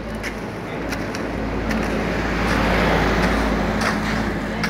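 A motor vehicle passing on the road, its engine and tyre noise growing louder to a peak about three seconds in and then easing. A few short scrapes of a hoe working the sand and cement mix sound over it.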